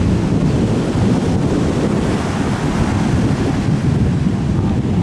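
Ocean surf and wind buffeting the microphone, a steady low rumbling noise with no distinct events.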